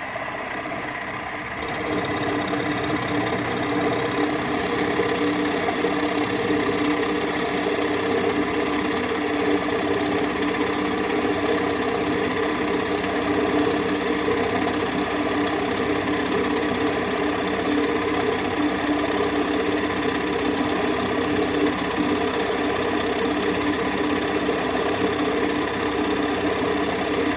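A milling machine's end mill cutting a slot in the crankshaft bar, taking a 20-thou-deep pass: a steady machining whine and chatter that grows louder about two seconds in and then holds even.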